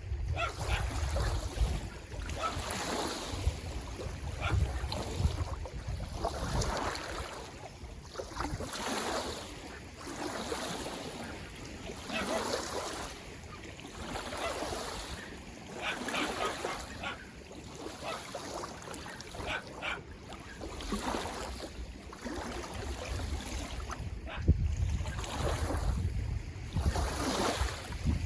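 Small lake waves lapping and splashing at the shore in an uneven rhythm, a swell every second or two. Wind buffets the microphone at the start and again near the end.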